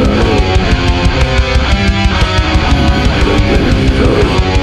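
Death-doom metal recording: heavily distorted electric guitars over a drum kit keeping a fast, even beat.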